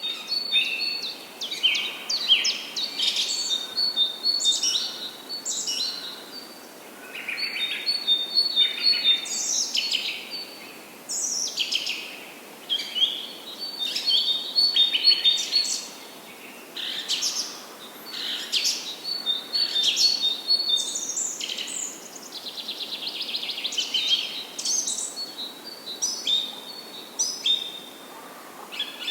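Several wild birds chirping and singing over one another in a busy, continuous chorus of short high calls, over a faint steady background hiss.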